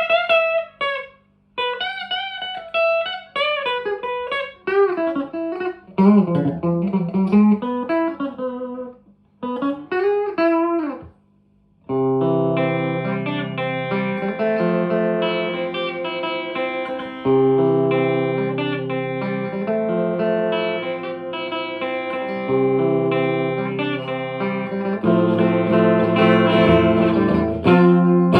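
1983 Fender Squier JV Telecaster played through a 1963 Selmer Thunderbird Fifty valve amp on its channel 2, with 1970s Celestion Greenback speakers. It plays single-note lead phrases with string bends. After a brief pause about twelve seconds in, it moves to held chords that ring out.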